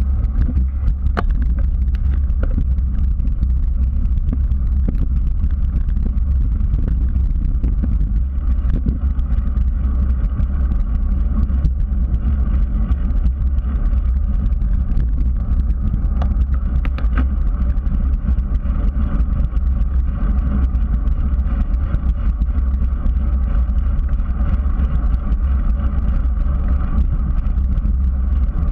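Steady low rumble of wind buffeting the microphone and tyres rolling on asphalt, picked up by a GoPro mounted on a moving bicycle, with a few light clicks of the bike and mount rattling.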